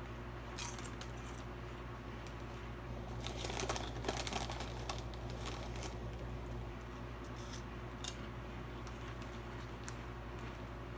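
Potato chip bag crinkling as a hand reaches in, and chips crunching as they are eaten, over a steady low hum. The rustling and crunching come in scattered short crackles, busiest around three to five seconds in.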